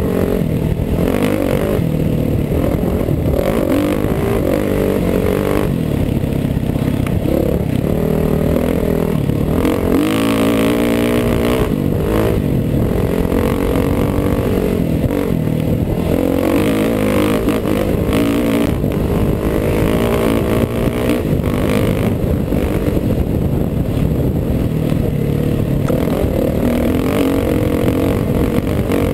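Four-stroke dirt bike engine running hard at race pace, its pitch rising and falling again and again as the rider works the throttle and shifts, with rough wind and chassis rattle on a helmet-mounted microphone.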